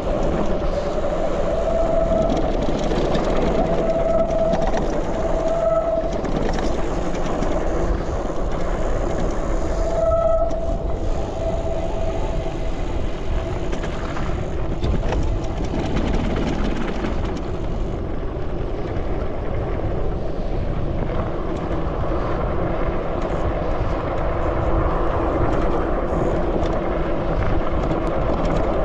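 E-bike ridden along a dirt track: steady rumble of wind on the handlebar microphone and tyres rolling on the dirt. A faint whine comes and goes in the first half.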